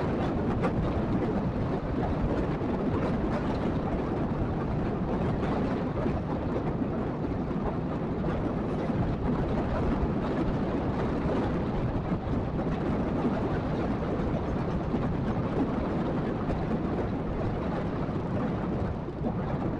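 Steady low rumble of a vehicle on the move, tyre, engine and wind noise blended together with no distinct events.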